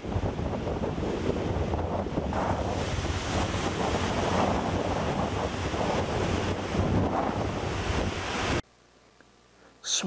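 Heavy storm surf crashing and foaming over coastal rocks, with wind buffeting the microphone. It stops abruptly about eight and a half seconds in, leaving near silence.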